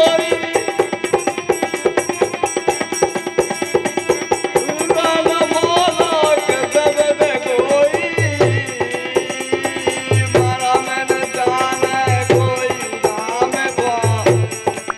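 A folk devotional bhajan played live on harmonium, dholak and fast jingling hand percussion. A man's singing voice comes in about five seconds in, and from about eight seconds deep dholak bass strokes fall in pairs about every two seconds.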